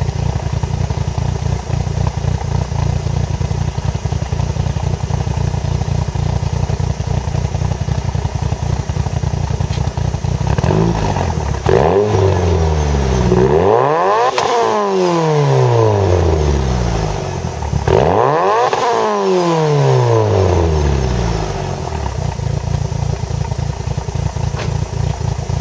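Exhaust of a Mitsubishi CP9A Lancer Evolution's turbocharged 4G63 inline-four through a Fujitsubo Power Getter muffler with its silencer insert removed: idling with a steady pulse, then revved twice, the pitch climbing and falling back each time, and settling to idle near the end.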